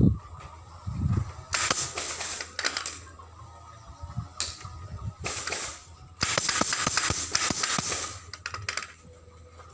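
Bursts of rapid sharp clicks and snaps with a hiss: several short runs, then a longer run of about two seconds near the middle.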